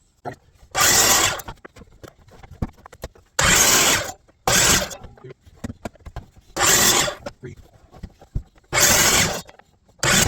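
Power miter saw cutting short pieces off a 1.25-inch poplar dowel at a 45-degree angle: six quick cuts, each a short burst of blade-through-wood noise, one to two seconds apart.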